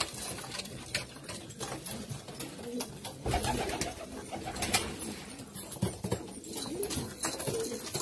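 Syrian Latakia-type fancy pigeons cooing in a small room, with a few scattered sharp clicks.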